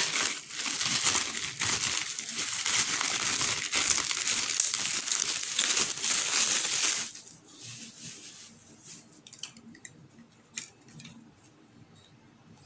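Plastic packaging crinkling and rustling as a pack of new LED backlight strips is opened. After about seven seconds it stops, leaving a few light clicks and taps.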